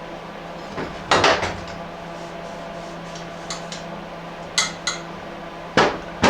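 Metal tools and engine parts clinking and knocking as they are handled on a workbench: a cluster of clinks about a second in, two more a little past the middle and a few near the end, over a steady low hum.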